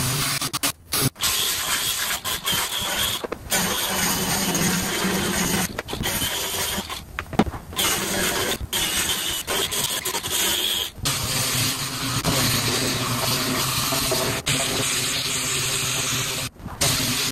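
Air-powered sander grinding down fiberglass: a steady, loud rushing run that cuts out abruptly and picks up again several times.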